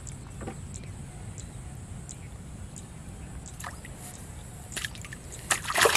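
Splashing in shallow muddy canal water: a few faint splashes, then a loud burst of splashing near the end as a fish is hooked and pulled up on a bamboo rod's line.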